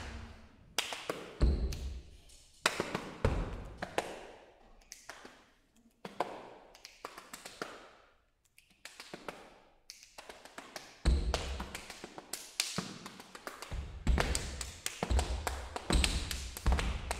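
Two percussionists performing body percussion: phrases of quick hand claps and slaps on the body, separated by brief pauses, each stroke leaving a short echo. Heavier low thumps join in during the second half.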